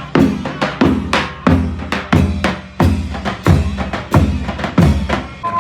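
Drums playing a steady, even beat, a heavy bass-drum thud with snare about every two-thirds of a second.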